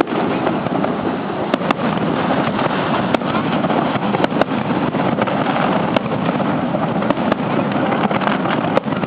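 Aerial fireworks display going off: a continuous dense wash of noise with a sharp crack or pop every second or so.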